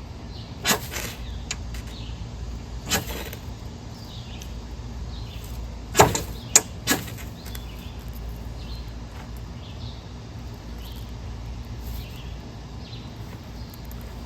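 Ferro rod struck with the spine of a stainless Mora Companion knife: five short, sharp scrapes, the last three coming close together within about a second.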